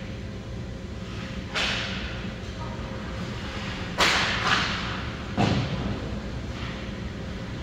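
Ice hockey play: sharp cracks and thuds of sticks, puck and boards echoing around the rink. There are four hits, the loudest about four seconds in, and the last one is a deeper thud.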